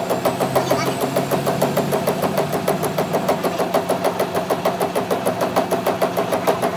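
A workshop machine running steadily with a rapid, even beat of about six pulses a second.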